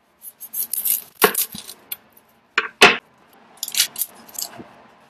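An onion's dry, papery skin crackling and rustling as it is peeled with a knife over a wooden cutting board. Two sharp knocks come about a second in and again near the three-second mark.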